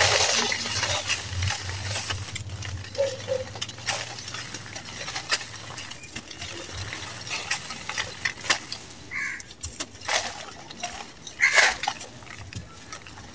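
Dry sand-and-cement crumbled by hand: a gritty hiss of fine powder pouring through the fingers at the start, then scattered crunchy crackles as grainy lumps are squeezed and break apart.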